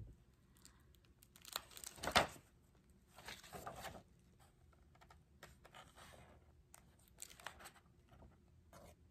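Paper packaging being handled: rustling and tearing in several short bursts, the loudest a sharp rip about two seconds in.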